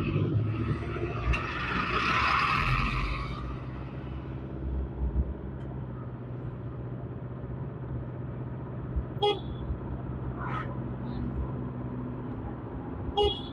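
Car driving on a road, heard from inside: a steady engine hum with road noise, and a louder rush of passing traffic in the first few seconds. Short horn beeps sound twice near the end.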